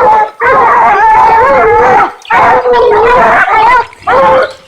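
A bear-hunting hound baying close by: two long, wavering bawls and then a shorter one.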